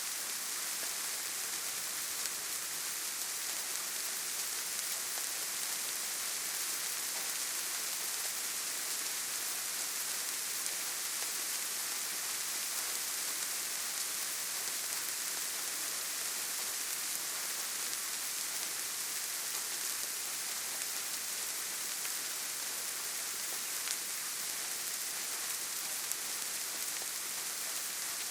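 Steady, gentle rain falling, an even hiss of many small drops with a few brighter drop ticks scattered through it.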